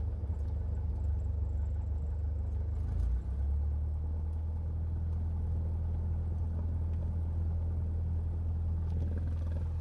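Cessna 172 Skyhawk's piston engine and propeller running at low taxi power, a steady low drone. There is a brief surge and dip about three seconds in, after which the drone holds steady again.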